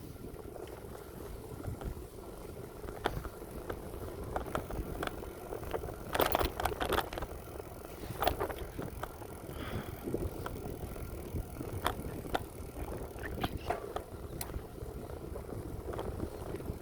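Bicycle being ridden on a paved path: steady tyre rumble with scattered clicks and rattles, busiest about six to seven seconds in.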